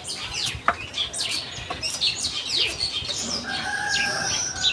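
Small birds chirping, many quick falling chirps in a row, with a longer held call from about three and a half seconds in.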